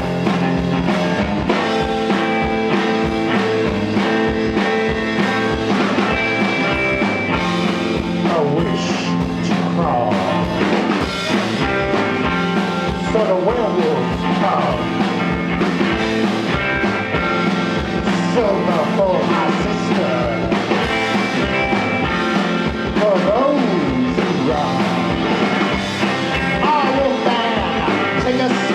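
Rock band playing live: drums keep a steady beat under bass and electric guitar, with a lead line bending in pitch now and then.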